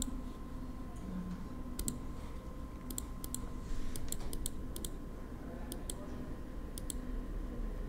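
Scattered clicks of a computer mouse and keyboard, about eight of them, most coming as quick close pairs, over a faint steady hum.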